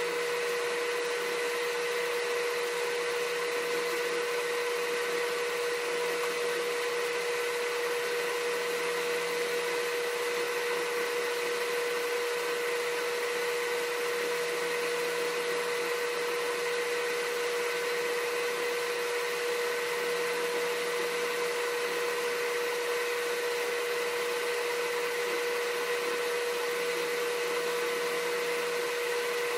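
A small electric motor running steadily: a constant hum with a whine and hiss that never changes.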